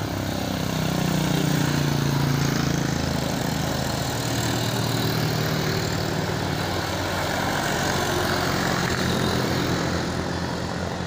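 Large tour bus's diesel engine labouring up a steep climb, its pitch sagging over the first few seconds and then holding steady.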